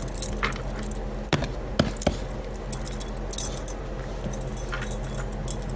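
Light metallic jingling and clinking, with a few sharp taps in the second second, over a steady low hum.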